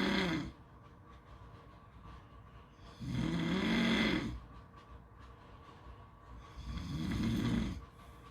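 Snoring: the end of one snore right at the start, then two more about three and a half seconds apart. Each is a low rasp of a little over a second whose pitch rises and falls, with quieter gaps between.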